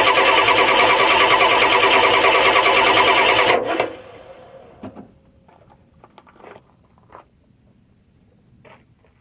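1993 Ford 7.3 IDI V8 diesel being cranked by its starter, a loud, fast, even cranking rhythm that cuts off abruptly about three and a half seconds in without the engine catching: a crank-no-start. A few faint clicks and knocks follow.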